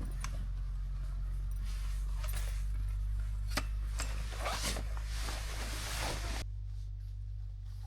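Short rustling and scraping handling sounds over a steady low rumble, which drops in level about six and a half seconds in.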